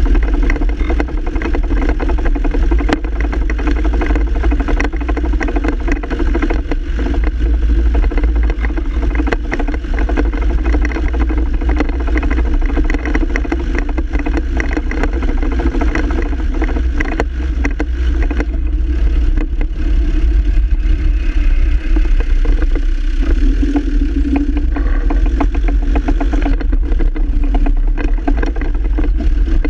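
Land Rover Defender Td5's five-cylinder turbodiesel running steadily, with a rapid, irregular clatter over it from the double-cardan propshaft joint rattling.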